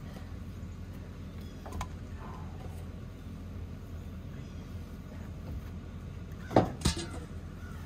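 Split firewood pieces knocking against each other as they are handled at a loaded trailer: a light knock about two seconds in, then two loud wooden clunks in quick succession near the end, over a steady low rumble.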